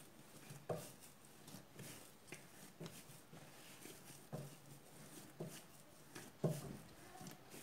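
Soft, risen yeast dough being kneaded by hand on a countertop: faint, irregular soft pats and squishes about once a second, the loudest about six and a half seconds in.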